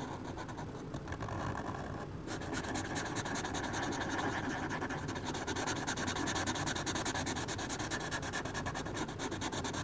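Felt-tip Sharpie marker scratching on drawing-pad paper as a leaf shape is coloured in with quick back-and-forth strokes. The scratching gets louder and denser about two seconds in.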